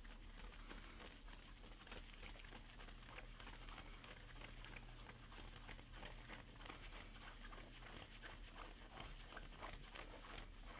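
Faint, rapid, irregular scratching of fingers rubbing a baseball cap against the scalp, over a low steady room hum.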